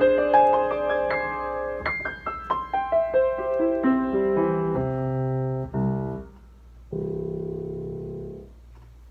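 Piano playing the closing bars of a slow beginner piece. A descending line of single notes leads to a short chord about six seconds in, then a final chord that is held briefly and released.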